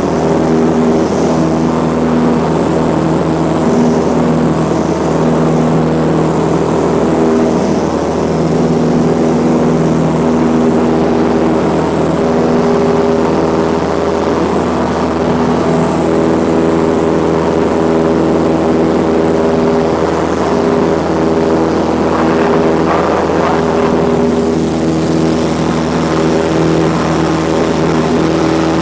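Cessna light aircraft's piston engine and propeller droning steadily in flight, a constant pitched hum with several overtones. About twenty-two seconds in, a rush of hiss rises over it for a couple of seconds.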